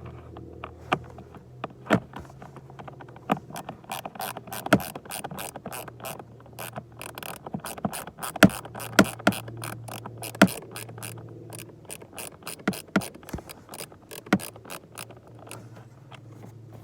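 Ratchet wrench clicking in irregular runs as two 7mm bolts are backed out of the plastic under-dash cover, over a steady low hum.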